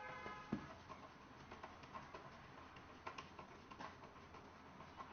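Faint, irregular light clicks of a hand screwdriver tightening self-tapping screws into the stand's base, with a brief squeak at the start and a single knock about half a second in. The screws are stiff because they cut their own thread.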